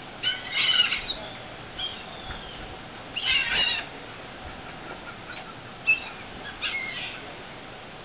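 Gulls calling in short, high-pitched squawks as they hover close overhead: a burst of calls just after the start, another about three seconds in, and brief calls near six and seven seconds, over a steady background hiss.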